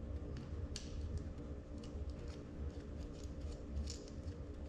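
Light metallic clicks and taps, a few a second and unevenly spaced, as nuts and a wrench are worked onto the mounting studs of a diesel injection pump, over a steady low hum.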